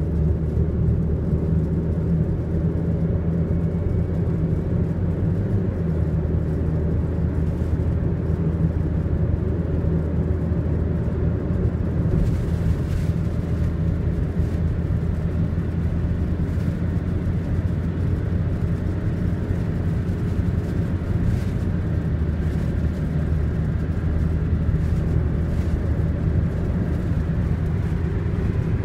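Steady low drone of a car driving at speed, heard from inside the cabin: engine hum and tyre noise on the road.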